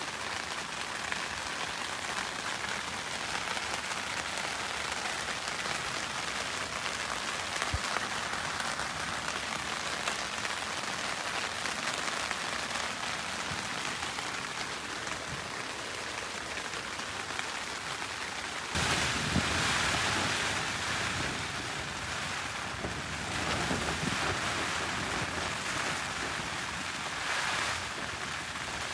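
Heavy rain falling on a tent, a steady hiss of drops on the fabric. About two-thirds of the way through, it suddenly gets louder and fuller, and it swells again near the end.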